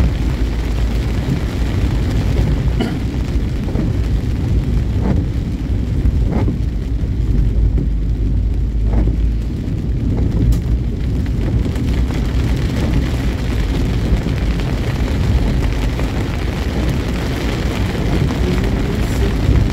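Steady, loud wind rumble buffeting the microphone, with road noise from a vehicle travelling along the road. A few brief rising sweeps come through in the first half.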